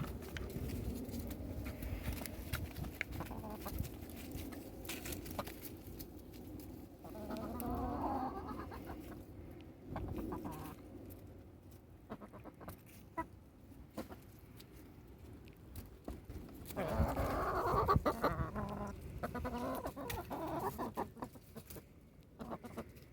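Backyard chickens clucking while eating blueberries, with louder bouts of calls about seven seconds in and again around seventeen seconds. Scattered short clicks run between them.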